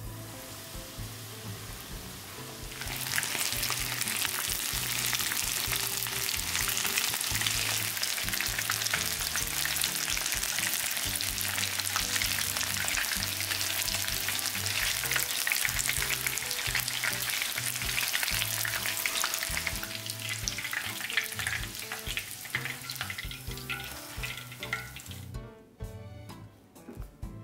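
Starch-coated chicken karaage pieces deep-frying in hot oil, a dense sizzle and crackle. It gets much louder about three seconds in and stops near the end, leaving soft background music.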